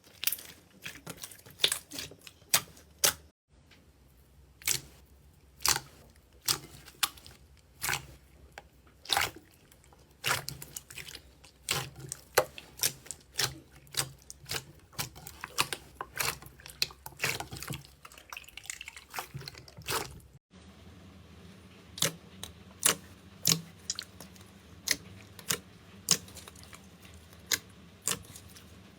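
Slime being squished and stretched by hand, giving a string of sharp, irregular wet clicks and pops.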